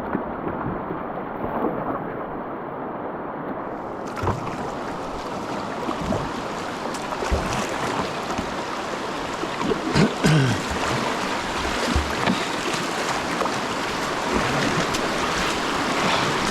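Whitewater rapids rushing steadily around a kayak, with a few short splashes and knocks from paddling through them.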